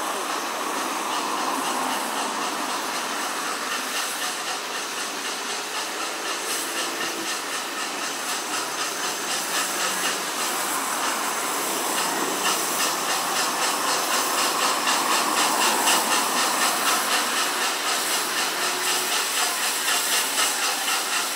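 Steam locomotive 46233 Duchess of Sutherland, an LMS Princess Coronation class Pacific, moving slowly with steam hissing from its open cylinder drain cocks. The hiss pulses regularly and grows louder as the engine draws near.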